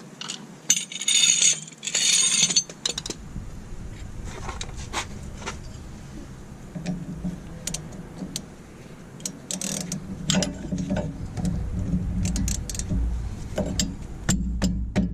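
Socket ratchet clicking and metal tools clinking as the front brake caliper bolts are loosened and removed, with a dense run of rapid clicks in the first couple of seconds and scattered clinks after. A low rumble sits underneath and grows louder in the second half.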